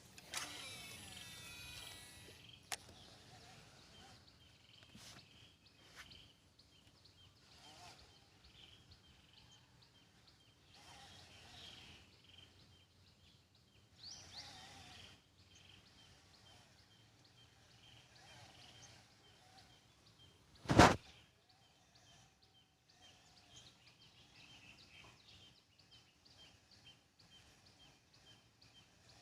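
Wild birds chirping and calling, with a quick repeated chirping going on underneath. A single short, loud, sudden noise about two-thirds of the way through.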